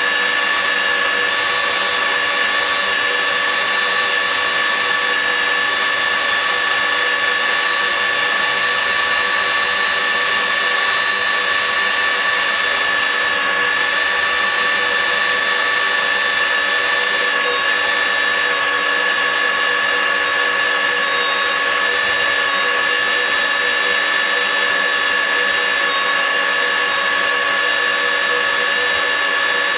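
Nitto WA-5000 magnetic drill running steadily, its motor giving a constant high whine with no change in speed.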